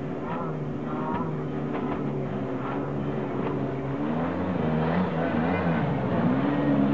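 Jet ski engine running at speed over the hiss of water spray, its note wavering up and down through the second half as the craft turns.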